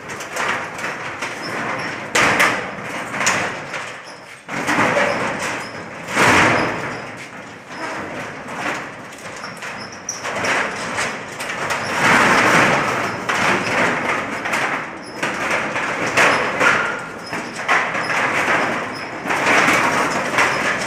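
Metal rolling shutter being worked by hand, its corrugated slats rattling and clattering in a series of irregular bursts, with occasional knocks.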